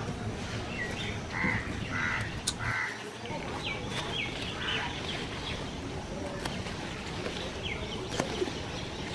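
Crows cawing several times in the first few seconds, with other small birds giving short chirps and a few faint sharp clicks.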